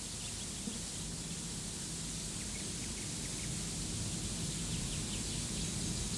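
Faint outdoor garden ambience with small birds chirping in short high notes, under a steady hiss and low hum from an old VHS tape.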